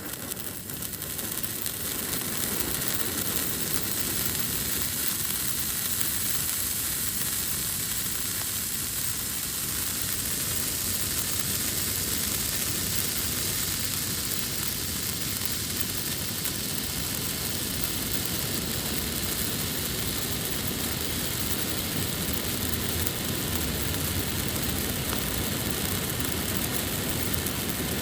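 Yellow-flame firework torch burning with a steady hiss. It grows over the first couple of seconds, then holds even.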